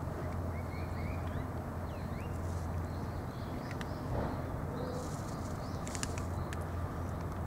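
Outdoor background: small birds chirping in short, thin notes over a steady low rumble, with a few brief clicks about six seconds in.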